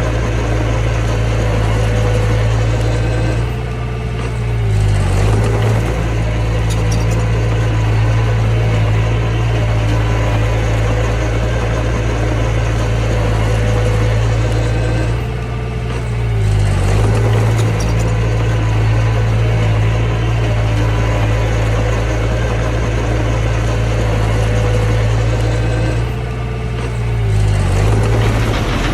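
Mini bulldozer's diesel engine running steadily under throttle. Its pitch sags briefly and recovers three times, about every eleven seconds, as the load on it changes.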